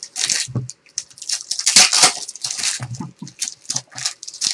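Clear plastic wrapping on trading-card boxes crinkling and crackling in quick, irregular bursts as hands handle it and pull it off, with a few soft knocks from the boxes.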